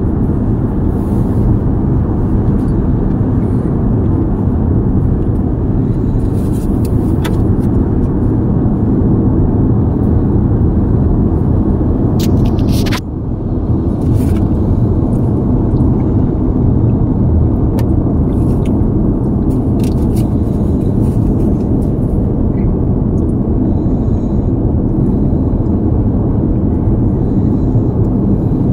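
Steady road and tyre rumble inside a Toyota's cabin at highway speed. There is a brief click and a short dip in the noise about halfway through.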